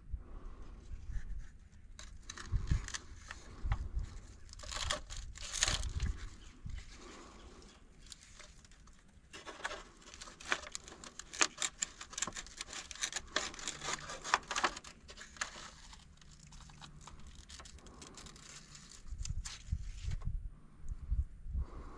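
Crinkling and rustling handling noise in two long spells, with a few low thumps near the start and again near the end.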